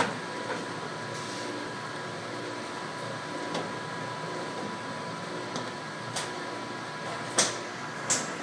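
Prodeva monitor crusher running with a steady hum while a CRT computer monitor is broken up inside it. Scattered sharp cracks come through, the loudest two near the end.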